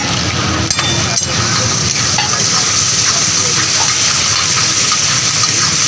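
Chicken karahi sizzling and frying in a steel karahi (wok) over a gas flame while it is stirred with a metal spatula: a loud, steady sizzle, with a couple of sharp clicks about a second in.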